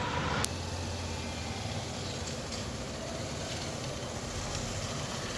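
Motorcycle engine running with a steady low hum, with a brief click about half a second in.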